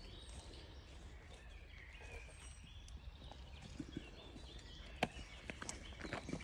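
Faint steps and scuffing in dry leaf litter as a Rhodesian ridgeback walks up and noses through the leaves. A few sharper clicks come in the last second and a half.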